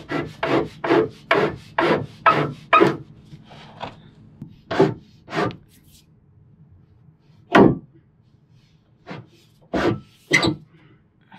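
Black steel gas pipe scraping against the wooden beam and joists as it is pushed and pulled along under the floor, in a quick run of strokes about two a second, then single scrapes a second or two apart.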